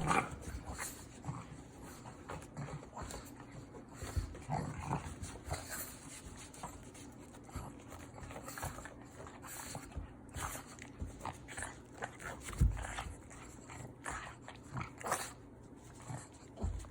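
A pug making faint, scattered short sounds, with one low thump about three-quarters of the way through.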